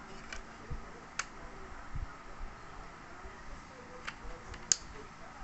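A few light plastic clicks and taps as a spool is fitted onto a handheld plastic fishing-line spooling winder, the sharpest click near the end.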